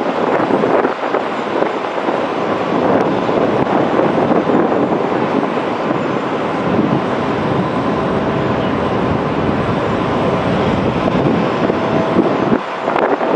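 Twin turbofan engines of a Boeing 777 airliner in a low display pass, a steady, loud jet noise with a faint thin whine running through it.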